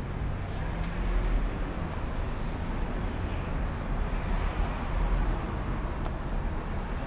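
Steady city street traffic noise: cars running along a busy avenue, with a heavy low rumble.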